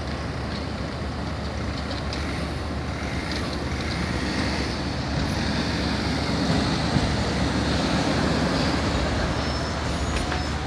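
Tatra T4R tram rolling past on street track amid steady city traffic noise, getting louder as it passes close in the middle.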